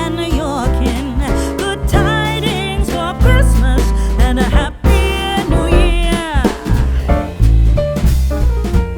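Upbeat music with a singing voice over drums and bass guitar.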